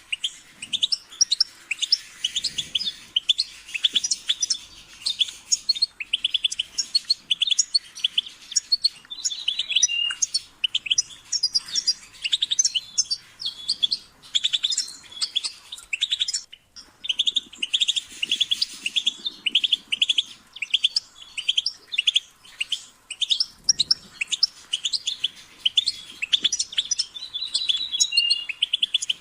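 European goldfinch singing: a fast, continuous run of short twittering chirps, which breaks off briefly about halfway through.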